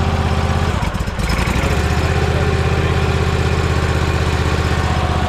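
Barreto 30-SG stump grinder's engine running steadily. About a second in, the sound briefly dips and shifts as the cutting wheel is engaged, and the engine then runs on with a higher whine from the spinning wheel added.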